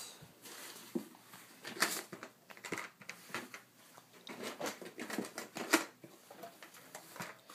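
Rustling and clattering of a cardboard shipping box and its packing material being rummaged through by hand, with irregular clicks and knocks.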